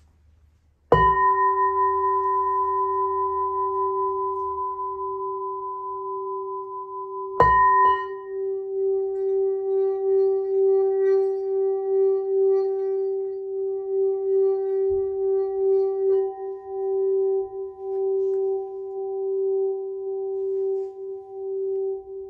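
Crystal singing bowl, tuned to G, struck twice with a padded mallet, about a second in and again about seven seconds in, each strike ringing on. It is then played around the rim, so the tone is held and swells and pulses steadily.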